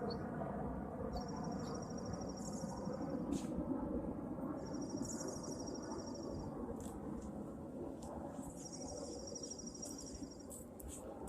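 A high, rapid trill, repeated three times, each about two seconds long and a few seconds apart, from a trilling insect or songbird, over a steady low background noise.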